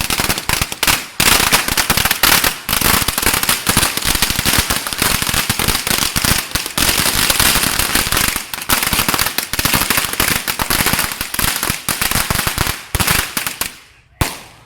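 A long string of firecrackers going off: a rapid, unbroken crackle of bangs that stops abruptly near the end, followed by one short last burst.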